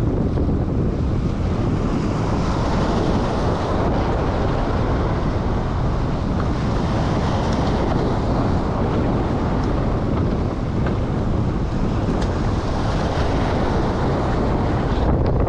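Wind buffeting the microphone over waves washing and breaking against the jetty rocks, the surf swelling up every few seconds.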